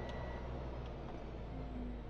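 Cessna 208EX Grand Caravan's PT6A-140 turboprop engine at ground idle, heard from the cockpit as a steady noise over a low hum. A high whine stops about half a second in and a faint high tone starts to fall, as the fuel condition lever is moved to cut-off to shut the engine down.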